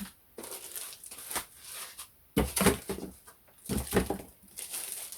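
Packaging being handled while a thermal label printer is unboxed: irregular rustling and crinkling in a series of bursts, the loudest about two and a half and four seconds in.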